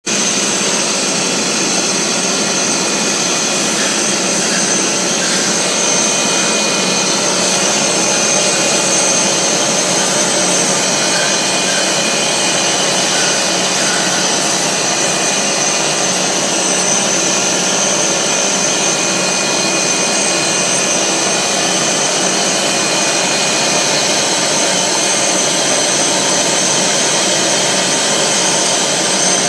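Air bubble film machine running: a steady, loud mechanical noise with a thin high whine held throughout.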